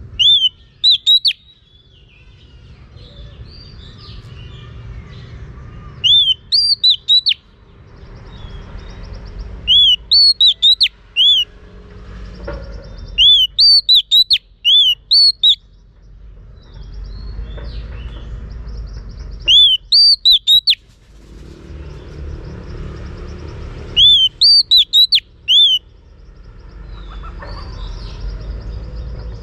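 Female Oriental magpie-robin singing: short loud phrases of three to five clear whistled notes that each rise and fall, repeated about every four to five seconds, with a low steady background rumble between phrases.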